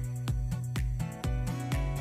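Background music with a steady beat, about four low thumps a second.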